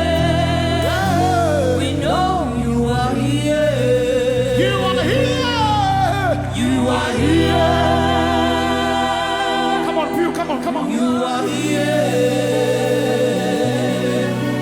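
Live gospel worship music: a band holding sustained chords and bass while singers and a choir sing long, wavering, sliding vocal lines.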